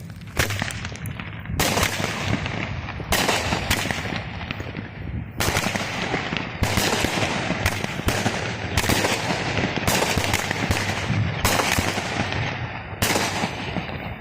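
Fireworks going off in a rapid run of loud bangs, roughly one a second at uneven spacing, each trailing off into crackling.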